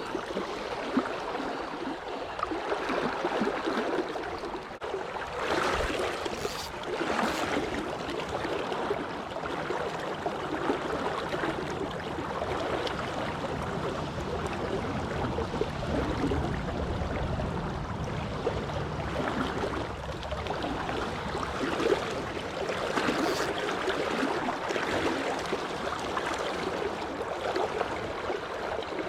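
Steady rush and gurgle of stream water, with a few short louder moments in the middle and again later.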